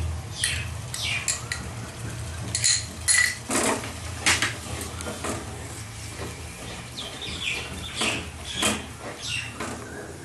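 A metal spoon scraping and clinking against cookware in irregular strokes, while whisked yogurt is stirred into the fried spice masala.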